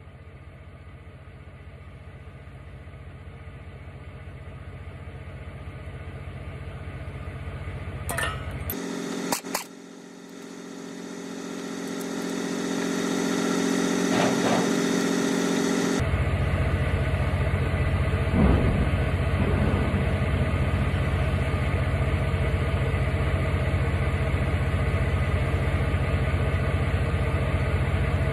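Impact wrench hammering steadily as it drives the screw of a brake anchor pin press, forcing the anchor pin out of a trailer's S-cam brake. A few sharp cracks come about eight to ten seconds in. The hammering changes to a steadier hum for several seconds and then resumes.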